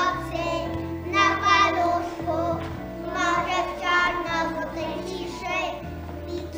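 Music: children's voices singing a Christmas carol over instrumental accompaniment, with a low bass line that changes note every second or so.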